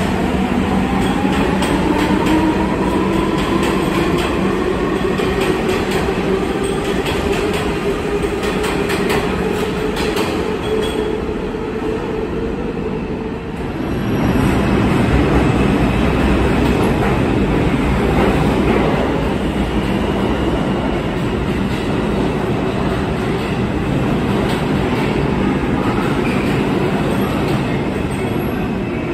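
A New York subway train pulling out on the far track, its traction motor whine rising steadily in pitch for about the first dozen seconds. Then a second train, an R142 on the 2 line, comes in on the near track with a louder steady rumble of wheels on rail.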